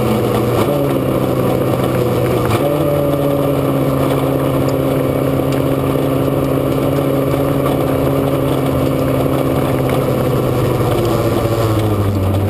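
Formula SAE race car's engine running hard and steady, heard from a camera on the car's nose over wind and road noise. Its pitch shifts about one and three seconds in, and drops near the end as the car slows.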